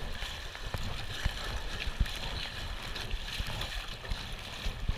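River rapids rushing and splashing against a kayak's bow as it is paddled through them, with a few dull knocks.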